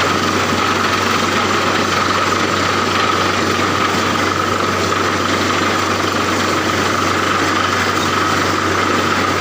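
An engine running steadily at constant speed, with a high whine over a low hum.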